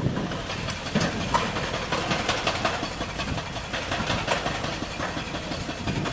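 Heavy diesel construction machinery running steadily, with scattered irregular clanks and knocks over the engine rumble.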